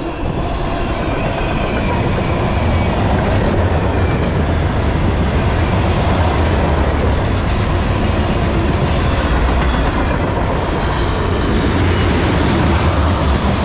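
Tank cars and steel-coil cars of a long freight train rolling past close by: a steady, loud rumble of steel wheels on the rails with clickety-clack.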